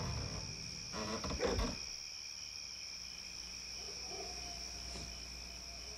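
Night-time crickets chirring steadily at a high pitch, with a few brief knocks and rattles of debris settling in the first two seconds.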